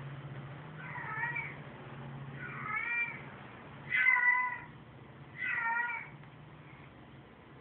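Female cat in heat calling, played over a television's speaker: four drawn-out meows that bend up and down in pitch, the third the loudest.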